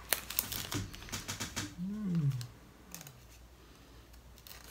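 Trading cards and plastic card sleeves handled on a tabletop: a run of light clicks and rustles. About two seconds in comes a short low hum from a person's voice that rises and then falls, and the handling goes on more quietly after it.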